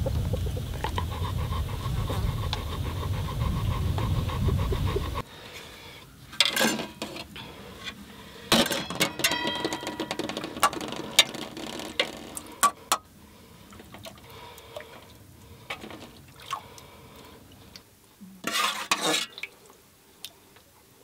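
A metal spoon scraping and clinking against metal pots and bowls as soft white curds are scooped out and knocked off into a bowl, with sharp clinks from about five seconds in and a louder scrape near the end. Before that, a low steady rumble.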